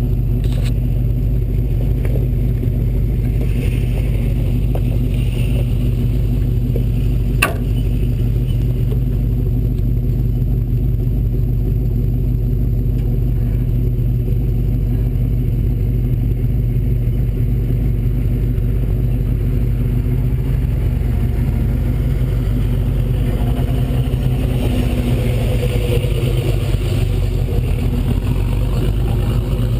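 Ford Bronco off-road race truck's engine running at a steady pace under way, a constant drone with one sharp knock about seven seconds in.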